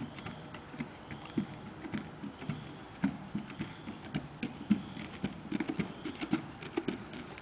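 Horse's hooves clopping at a walk on a bridge deck, a steady run of low thuds with sharper clicks among them.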